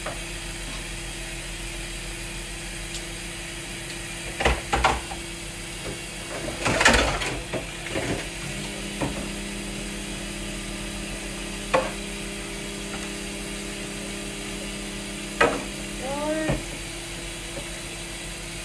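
Dishes being washed by hand: scattered clinks and knocks of crockery and cutlery, with a longer clatter about seven seconds in. A steady low hum starts a little past halfway and stops with a short squeak and a knock near the end.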